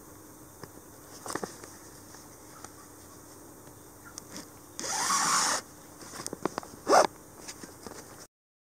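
Cord being drawn through punched holes in a deer hide, with rustling and scraping of the stiff hide and fur under the hands. There is a longer scraping pull about five seconds in and a short sharp one near the end, then the sound cuts off suddenly.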